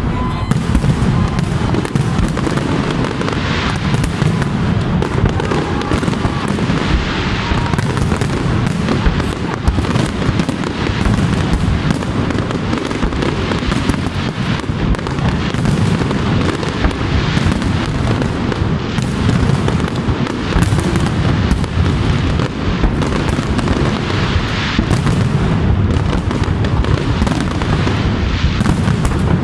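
Aerial firework shells bursting in rapid, continuous succession, booms and crackles overlapping without a break.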